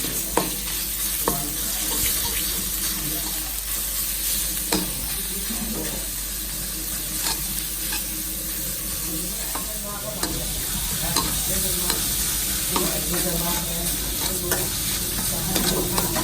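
Chinese kale being stir-fried in a hot wok: a steady oil sizzle, with the spatula scraping and knocking against the pan every second or so, more often near the end.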